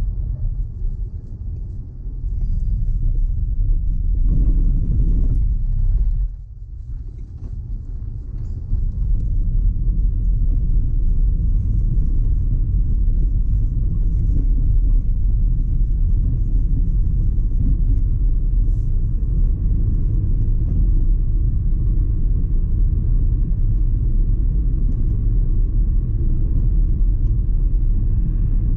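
A car driving, its engine and road noise making a steady low rumble that drops briefly about six seconds in and builds back up from about nine seconds.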